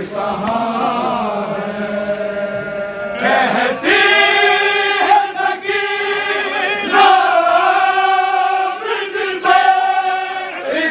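A chorus of men chanting a nauha, a Shia mourning lament, in unison. The singing swells louder about three seconds in and moves in long held phrases.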